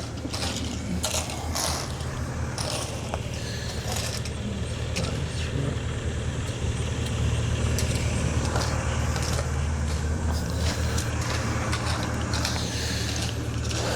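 An engine running steadily with a low hum, a little louder in the middle, with scattered clicks and knocks.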